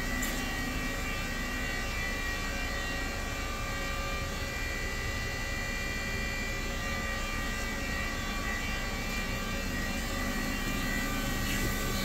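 Haas VF-4SS vertical machining center running, its spindle turning and flood coolant spraying inside the closed enclosure: a steady whine of several held tones over an even hiss.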